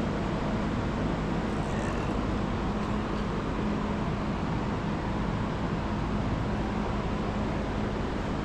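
Steady workshop background noise: an even rushing noise with a constant low machine hum under it, unchanging throughout, with a faint tick about two seconds in.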